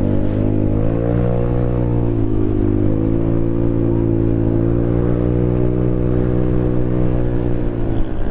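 Vespa scooter's single-cylinder engine and exhaust under way. The engine note climbs about a second in, dips briefly, then holds steady as the scooter picks up speed and cruises.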